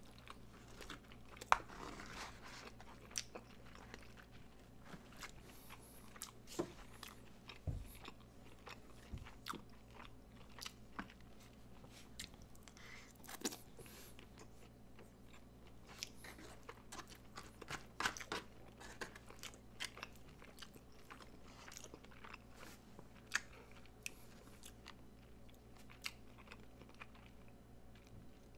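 Close-miked chewing of a mouthful of loco moco (hamburger patty, fried egg, rice and gravy): soft wet mouth clicks and smacks, irregular and faint, over a low steady hum.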